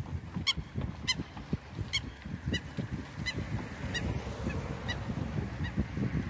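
Geese honking in a steady run of short calls, about one every half second, fading toward the end, over wind rumbling on the microphone.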